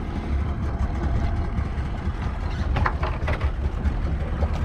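A hooked dorado (mahi-mahi) thrashes at the water's surface beside a small boat's hull, giving a couple of short splashes about three seconds in over a steady low rumble.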